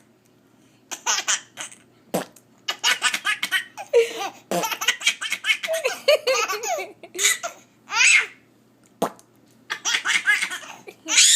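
Baby laughing in repeated bursts of belly laughs and giggles, broken by short pauses and a few short sharp pops.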